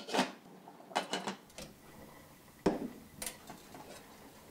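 Glass saucepan lids with steel rims being set onto stainless steel pots: a handful of separate clinks and clatters, the loudest about two and a half seconds in.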